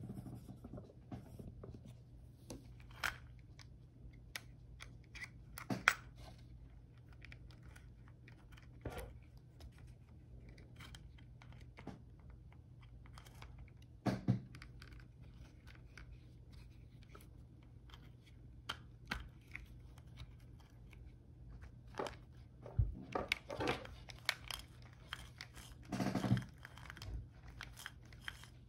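Scattered small clicks, taps and rattles of plastic and metal RC car parts being handled as dogbones are fitted into a Kyosho Raider buggy's rear drivetrain, a few of them sharper knocks, over a steady low hum.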